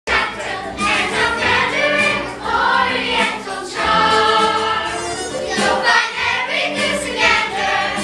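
Mixed cast of children and adults singing a musical-theatre chorus together, with instrumental accompaniment.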